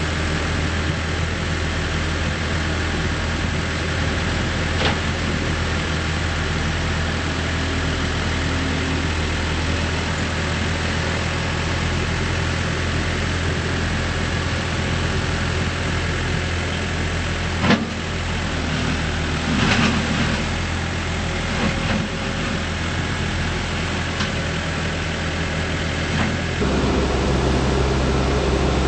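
Case 580N backhoe loader's diesel engine running steadily, with a few short knocks along the way. The engine note changes near the end.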